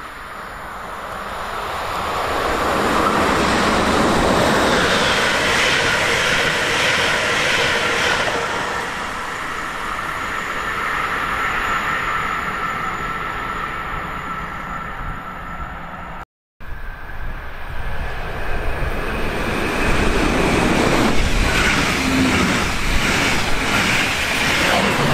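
Electric double-deck passenger trains passing through a station. The rush of wheels on rail swells over the first few seconds and peaks early, with a steady tone over it. After a cut, a second double-deck train, a push-pull set with a class 146 electric locomotive, passes close with a loud rush of wheels and repeated knocks over the rail joints.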